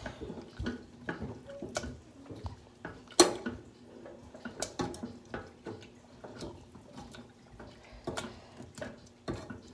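Metal potato masher pressed repeatedly through thick cooked blackberry jam in a stainless steel pot: irregular wet squelches and metal knocks against the pot bottom, the loudest about three seconds in. It is mashing the remaining whole berries so the jam is spreadable.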